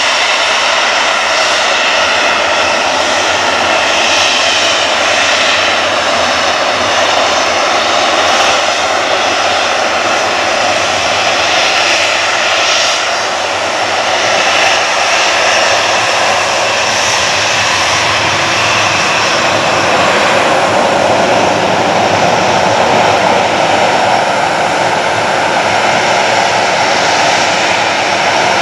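Boeing 737-800's CFM56 turbofan engines running at low taxi power: a steady jet whine with several held tones over a broad rushing noise.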